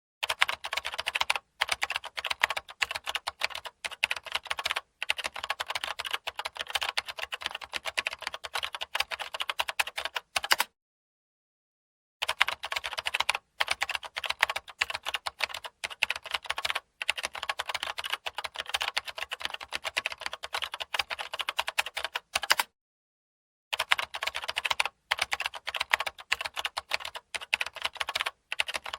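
Rapid typing on a computer keyboard: a dense, continuous run of key clicks that stops dead twice, for a second or so each time, once a little before the middle and once about three-quarters of the way through.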